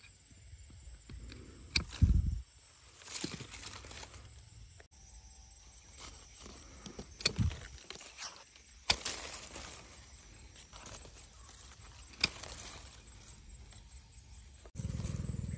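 Hand pruning shears snipping small branches on a young durian tree: about five sharp snips spread through, with leaves and twigs rustling between them. A low rumble sets in near the end.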